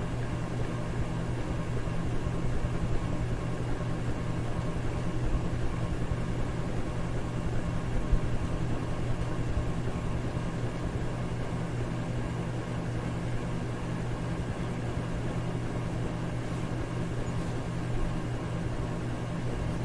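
Electric fan running steadily: a constant rushing noise over a low motor hum.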